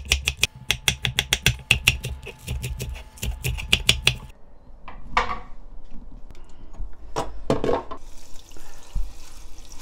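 Kitchen knife rapidly chopping on a wooden cutting board, julienning potato and then slicing green onion, at about six or seven strokes a second. The chopping stops about four seconds in, followed by a few scattered knocks and a soft hiss near the end.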